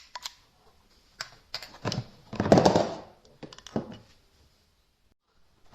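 Metallic clicks and clacks of a CZ 83 pistol being handled and cleared to check that it is unloaded. There is a string of sharp clicks, a louder, longer clack about two and a half seconds in, and a few more clicks after it.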